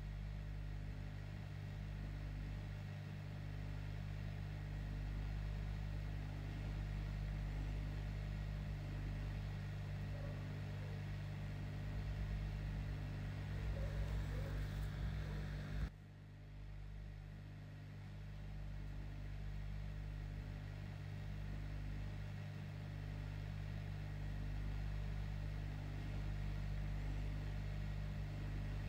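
Steady low hum of a small fan or motor, dropping off sharply about halfway through and then coming back.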